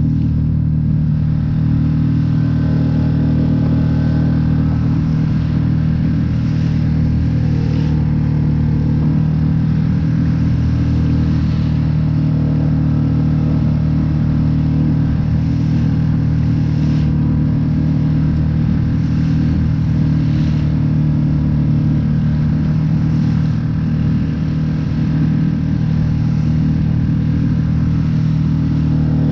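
Mercury 6 hp outboard motor running steadily under way, a constant drone pushing a small inflatable boat. Every few seconds the hull slaps and splashes through small waves.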